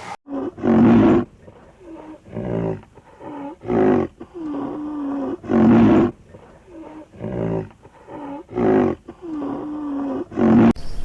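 A big cat roaring: five loud roars about two to three seconds apart, with lower growling grunts between them. The sequence cuts off abruptly just before the end.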